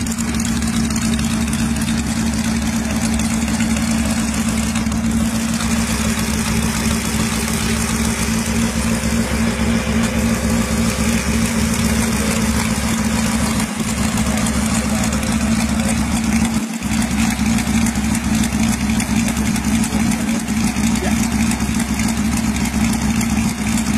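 Homemade 392 cc V8 motorcycle engine idling steadily, with two very brief dips in the sound past the middle.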